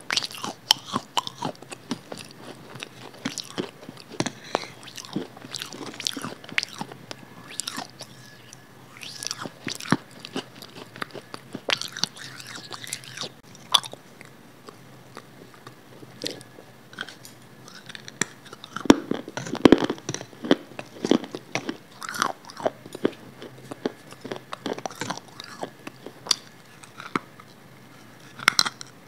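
Close-miked biting and chewing of a firm white food dipped in sauce: repeated crunches and wet mouth sounds, with a denser, louder run of crunches about two-thirds of the way through.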